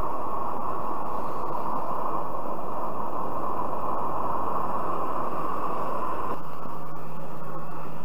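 Kerosene pressure stove burner running at a low setting with a steady rushing hiss. About six seconds in the sound changes abruptly to a weaker steady noise with a low hum.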